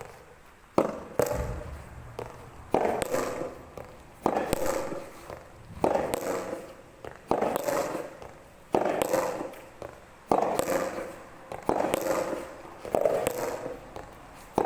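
Soft tennis rubber ball being struck over and over in a practice drill, a sharp pock about every one and a half seconds, each with a short ringing tail.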